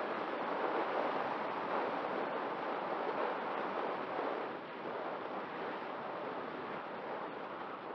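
Steady rushing wind and airflow noise on the microphone of a camera flying low and fast over grass on a rotor-driven craft.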